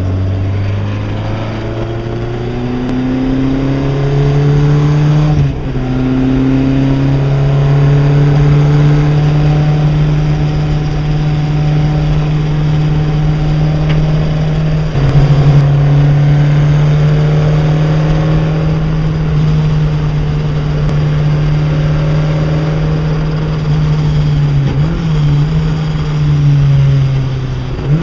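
Chevron B8 sports racing car's engine at full throttle, heard from the passenger seat at speed: the note climbs at first, then holds high with brief dips as it changes gear, about five seconds in and twice near the end, over steady wind and road noise.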